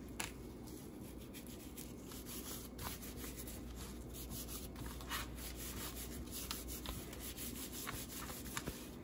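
Faint, irregular rubbing and rustling of a plastic-gloved hand working dry seasoning into the scaly skin of whole tilapia.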